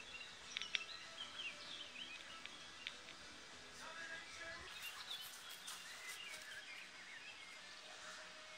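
Quiet outdoor background of small birds chirping in short, scattered calls, with a few faint clicks. A faint steady tone comes in near the end.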